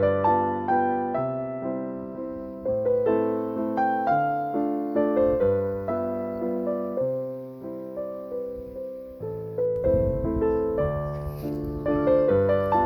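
Background piano music: a slow, gentle melody of struck notes left to ring and fade.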